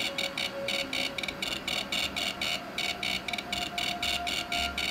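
Ghost Meter Pro EMF meter giving its continuous cricket-like crackling chirp, a rapid even stream of about nine chirps a second. This is its idle sound with the needle low and no red light; the device stops the sound when it registers a spike.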